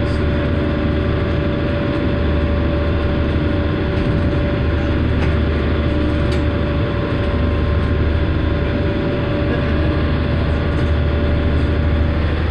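Passenger ferry's engines running steadily, heard from inside the cabin: a deep rumble with a steady whine on top, over an even rush of rough water and spray.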